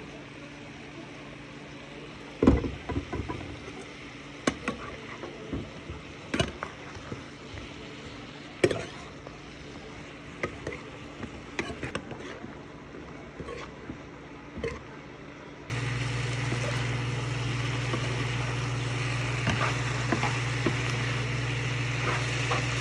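Sliced zucchini and yellow squash cooking in a frying pan on a stovetop, over a steady low hum, with a dozen or so scattered clicks and knocks of the pan and utensils. About two-thirds of the way through it cuts to a louder steady hum and hiss.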